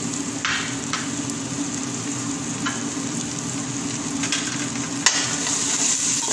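Chopped onion, tomato and garlic sizzling in hot oil in a stainless steel pot, with bay leaves, cinnamon and ground spices just added, over a steady low hum. About five seconds in a sharp knock, the spatula striking the pot, as stirring begins and the sizzle grows a little louder.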